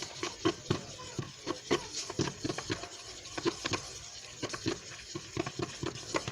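A sticky paste-and-flour dough being stirred and worked in a small container, making rapid squelching taps about three to four a second. It stops abruptly near the end.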